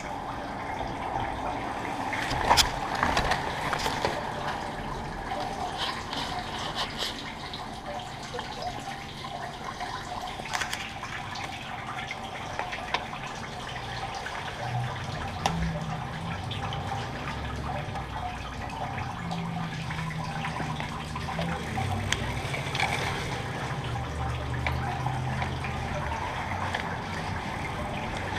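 Water trickling and dripping in a wet wash bay, with a few sharp clicks a few seconds in and a low steady hum joining about halfway through.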